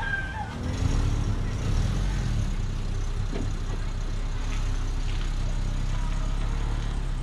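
2007 VW New Beetle's engine running at low revs as the car manoeuvres on a clutch test drive. The revs rise briefly about half a second in, then settle to a steady hum.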